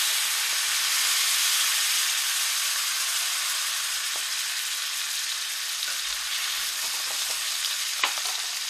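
Blackened grouper fillet sizzling in hot fat in a stainless-steel skillet: a steady hiss that slowly eases, with one sharp click near the end.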